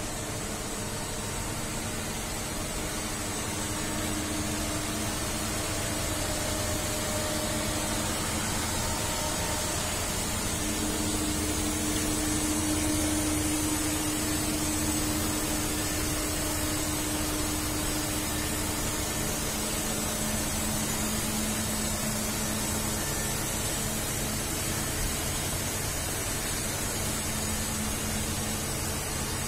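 Steady whirring hiss and hum of a large CNC gantry machining center and its auxiliary units running, with faint steady tones; a low hum tone swells for a while in the middle.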